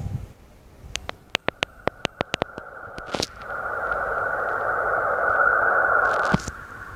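Sonified space recording of the kind played as a 'sound of a planet': a run of sharp clicks, then a steady hiss with a hum near 1 kHz that swells and cuts off suddenly.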